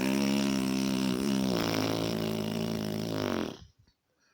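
A person imitating a fart with the mouth: one long, steady buzzing raspberry that cuts off about three and a half seconds in. It stands for a diarrhoea fart.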